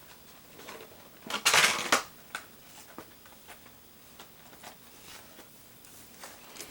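Plastic toy packaging being handled, with one loud rustling scrape about a second and a half in, then a few light clicks and taps.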